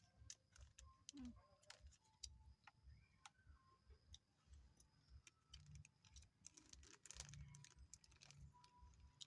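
Faint, irregular wet clicks and smacks of a dog chewing and licking cake, a short cluster of them about seven seconds in.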